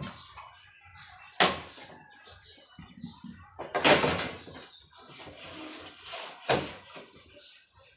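Three sharp knocks and bangs, like plywood boards being handled and set down, the loudest and longest about four seconds in, with light clatter between them.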